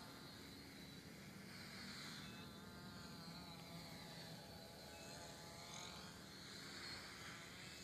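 Home-built tricopter's three electric motors and propellers buzzing faintly in flight, the pitch rising and falling over and over.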